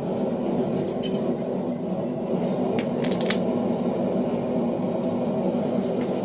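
Light metallic clinks of steel tools and workpiece, a short cluster about a second in and another around three seconds in, over a steady low rushing of a running forge.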